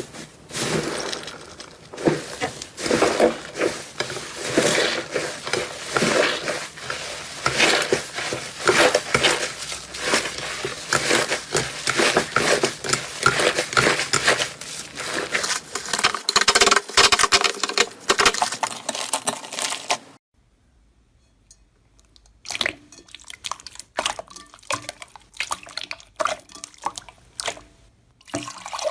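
Slime being squeezed, poked and stretched by hand, with rapid wet squishing and sticky crackling. The sounds break off about 20 seconds in, then return as sparser squelches and pops.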